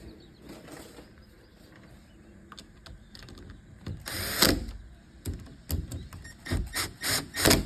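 Screws being driven into an electronic deadbolt's mounting plate: faint scraping at first, a louder grating creak about four seconds in, then a run of sharp clicks and knocks near the end.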